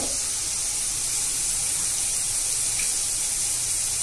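Onion, green chillies and capsicum frying in oil in a kadhai, a steady high sizzling hiss.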